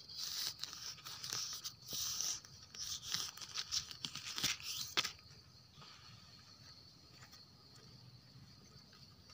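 Dry leaf litter rustling and crunching irregularly under movement on the forest floor for about five seconds, then stopping. A faint steady high insect buzz runs underneath and is left on its own after the rustling stops.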